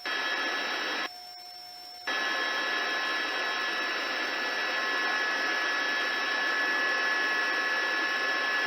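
Steady hiss with a few faint steady tones from the police radio and helicopter audio feed, an open channel carrying no voice. It cuts out for about a second, about a second in, leaving only a faint hum, then resumes.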